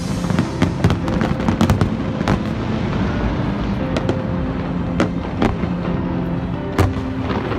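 Fireworks going off: a rapid run of sharp bangs and crackles in the first couple of seconds, then fewer but strong single bangs, with music underneath.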